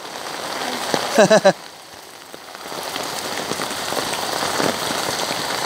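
Heavy typhoon rain falling on an open umbrella overhead. It is a steady hiss that fades briefly and then swells about three seconds in, holding steady after that.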